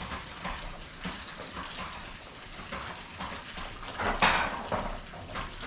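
Small splashes in shallow floodwater as bare feet shift and wade, with one louder splash about four seconds in as she reaches down into the water.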